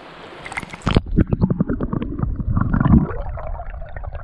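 Stream water heard underwater by a submerged camera: about a second in the sound goes muffled as it dips below the surface, giving way to low gurgling and churning with scattered clicks and knocks.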